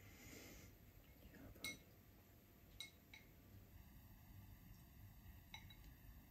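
Faint clinks of wooden chopsticks tapping a ceramic rice bowl while eating: four short, separate taps with a brief ring, the loudest about one and a half seconds in.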